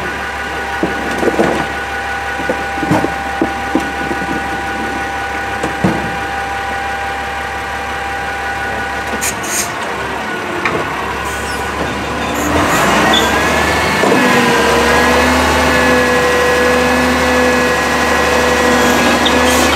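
CNG Amrep automated side-loader recycling truck idling with a steady whine, with a few knocks as plastic recycling carts are set beside it. About twelve seconds in the engine speeds up with a rising whine, then holds a louder steady hum as the gripper arm lifts two carts toward the hopper.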